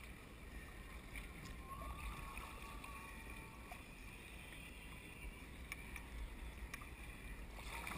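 Choppy sea water lapping and sloshing against a plastic fishing kayak's hull, with low wind rumble on the camera microphone.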